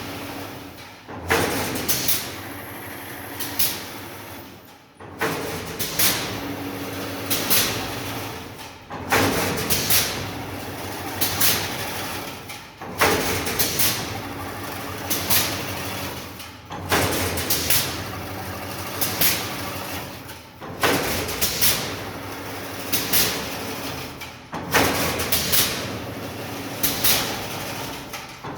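Kontelmak YGZ-220 automatic chain link fence machine running. Its work cycle repeats about every four seconds, each cycle starting with a sharp knock followed by a run of mechanical clicks and knocks.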